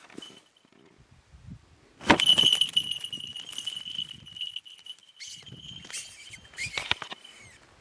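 A goshawk's falconry bell jingling: a high, steady ringing that sets in suddenly with a thump about two seconds in and carries on for several seconds, with rustling and knocks around it.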